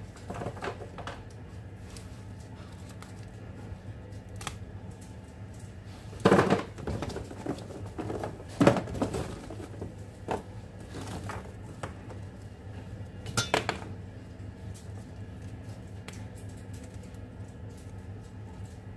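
Foil-wrapped chocolates and plastic storage bins being handled: scattered taps, clicks and light rustles, loudest about six and nine seconds in, over a steady low hum.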